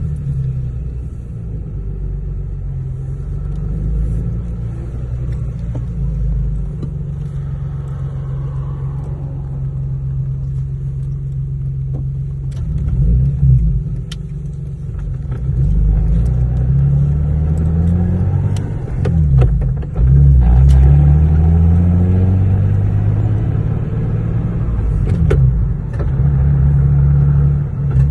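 Lexus GS300's inline-six engine under way, pulling up through the revs and dropping back at each gear change of the swapped-in ZF manual gearbox, several times in the second half, with a few short clicks.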